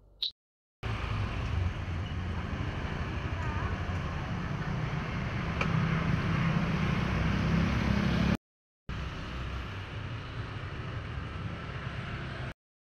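Motor scooter engine idling as a steady low rumble, with wind on the microphone. It cuts off abruptly about eight seconds in and comes back a little quieter.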